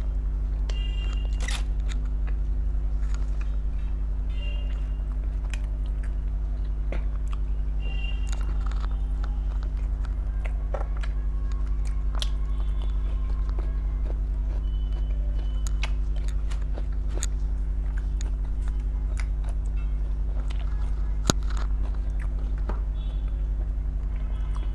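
Close-miked eating: chewing and biting food, with scattered crunches and wet mouth clicks, over a steady low hum.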